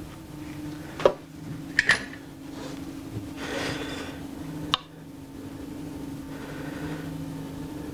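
Hands working a hand plane's broken tote during a glue repair: a few sharp clicks and taps of hard parts. The loudest comes about a second in, a quick pair just before two seconds and one more near five seconds, with a short rustle between them. A steady low hum runs underneath.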